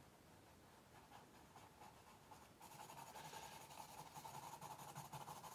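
Faint, quick scratching of a white pastel crayon laying down short strokes on brown paper, getting a little louder about two and a half seconds in.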